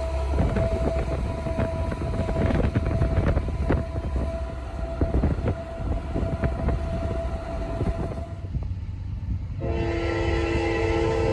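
Diesel freight train rolling by with a low rumble and repeated sharp clicks from the wheels. Near the end its locomotive horn sounds a steady multi-note chord.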